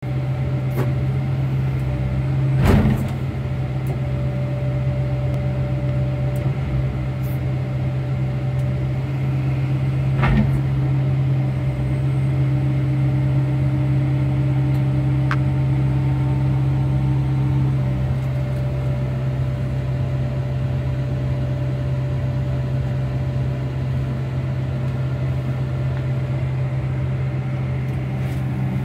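Diesel engine of a Link-Belt 250X3 material handler running steadily, heard from inside the operator's cab as a constant low hum. Two brief knocks come about three and ten seconds in.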